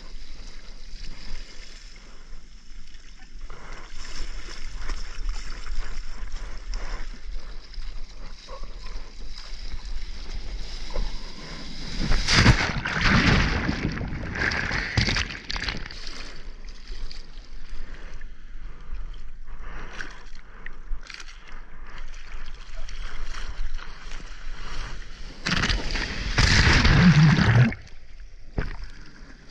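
Seawater sloshing and gurgling around a mouth-mounted action camera at the waterline in shorebreak whitewater. There are two loud churning surges, about twelve seconds in and again near the end, as the water closes over the camera.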